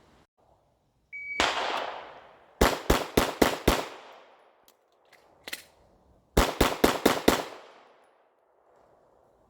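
A shot-timer beep, then a Glock 9mm pistol fired in two quick strings of five shots, about four shots a second. The strings are timed drills of the IDPA 5x5 classifier.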